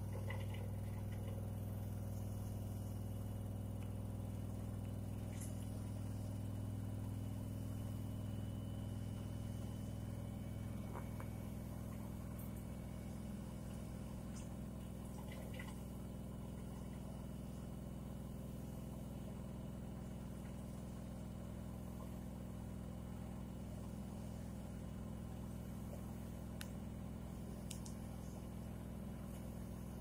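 LG FV309N front-loading washing machine running mid-cycle: a steady low hum, easing off slightly partway through, with a few faint ticks.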